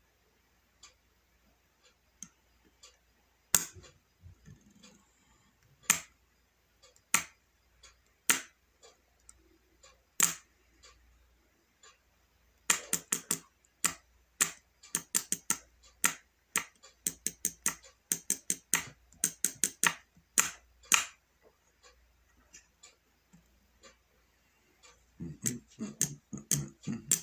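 Fingers typing or tapping: sharp irregular clicks, a few scattered at first, then a quick run of rapid clicks through the middle, and more clicks near the end.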